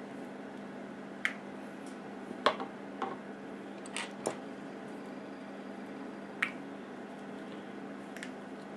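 Plastic Lego pieces clicking and tapping as they are handled and fitted: about seven separate sharp clicks, irregularly spaced, over a steady low hum.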